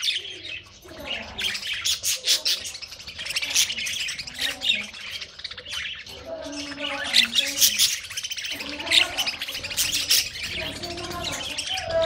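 A cage of budgerigars chirping and chattering: many rapid, overlapping high chirps with bits of lower warbling, going on without a break.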